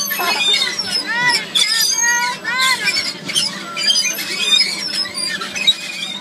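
Girls' and children's excited high-pitched squeals and shrieks, several rising-and-falling squeals in the first few seconds, mixed with overlapping chatter over a steady low hum.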